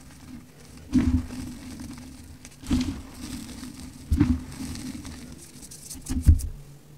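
Hands squeezing and crumbling crunchy compacted powder: four loud crunches, about a second, nearly three seconds, four seconds and six seconds in, each with a soft thud and a crackly crumble, with quieter sifting powder between them.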